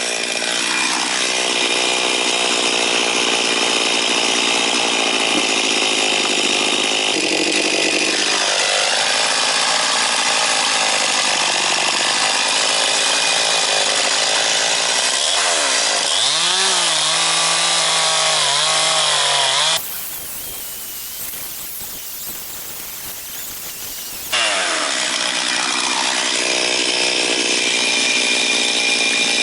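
Chainsaw cutting through a very hard, dense eucalyptus red box log, the engine running at high revs under load. Its pitch dips and rises several times a little past halfway, then the sound drops to a quieter stretch for several seconds before the full-power cutting starts again.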